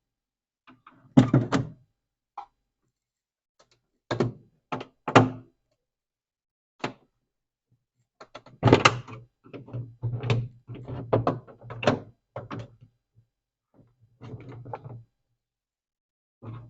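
Irregular knocks and thunks of parts being levered and handled on a Consul Duplex refrigerator as it is taken apart. There are a few single knocks, then a busier cluster of clunks about halfway through.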